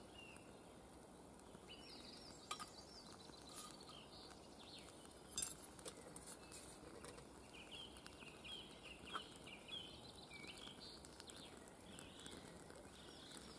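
Faint birdsong in woodland: small birds chirping in short, repeated notes. A few sharp knocks and clicks from gear being handled, the loudest about five and a half seconds in.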